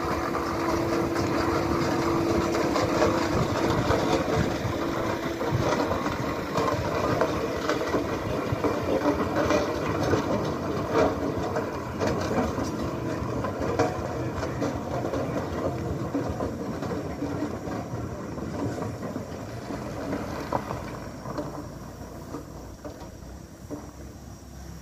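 Steam roller driving slowly by, with a dense clatter of engine, gearing and iron rolls on the road, and a steady hum in the first few seconds. It grows fainter near the end as the roller moves away.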